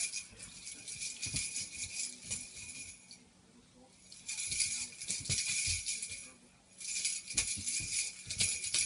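Small rattling object shaken hard by a capuchin monkey: three spells of fast rattling with short pauses between, and a few soft knocks as the monkey bounces on the couch.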